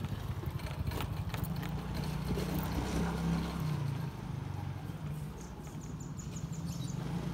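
Small motorcycle engine running at low speed, a steady rapid low pulsing heard from on the bike.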